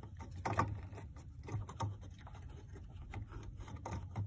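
Faint clicks and scrapes of plastic and metal parts as an HID headlight bulb and its bracket are worked into the headlight housing by hand. The sharpest click comes about half a second in. A low steady hum runs underneath.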